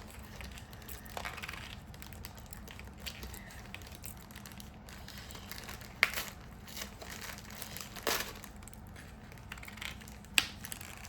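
Plastic craft-supply packaging being handled and crinkled, with scattered small clicks and a few sharper clicks, about six, eight and ten seconds in.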